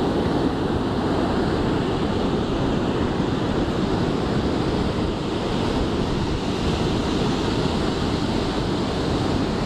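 Ocean surf breaking and washing up a sand beach in a steady wash, with wind rumbling on the microphone.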